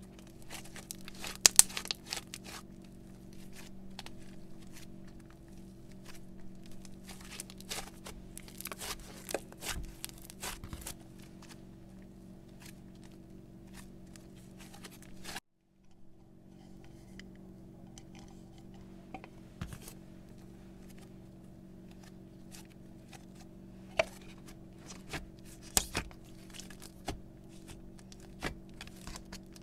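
Pink slime being stretched, folded and squished by hand, with many sharp clicks and pops of trapped air, over a steady low hum. The sound cuts out briefly about halfway.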